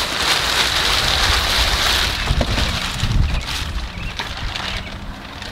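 A bent welded-wire cattle panel scraping and dragging over crinkling plastic sheeting as it is pulled out of a minivan's cargo area. The noise starts at once, is loudest for the first couple of seconds, then eases off.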